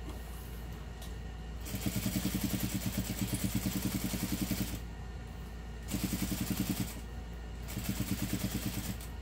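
Juki industrial sewing machine stitching a basting seam in three runs: a long run of about three seconds, then two short ones. Each run is a fast, even rhythm of needle strokes, with a low steady hum underneath.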